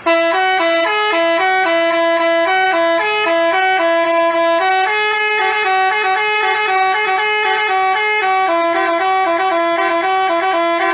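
Telolet basuri multi-tone bus horn playing a tune of short notes that step between a few pitches, loud and continuous, starting abruptly.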